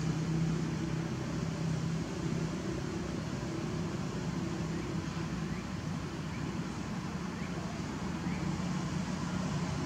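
Steady low engine hum from a motor running at an even pace, with a few faint short high chirps in the second half.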